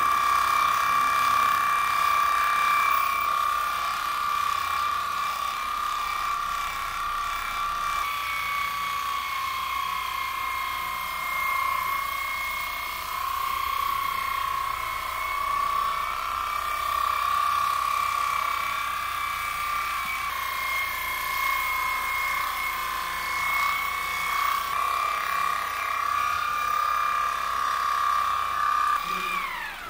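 Corded electric horse clippers running steadily with a high motor whine that wavers a little in pitch as the blades move through the horse's coat. Near the end the whine falls in pitch as the motor winds down.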